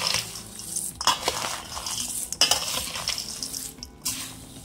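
Metal ladle stirring and tossing a dry mix of fried nuts and seeds in a stainless steel bowl: irregular scraping against the steel and the rattle of nuts, with a few sharp clinks.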